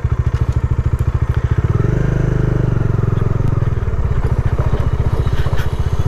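Bajaj Dominar 400's single-cylinder engine running with a fast, even pulse. The revs rise about two seconds in and ease back down near four seconds.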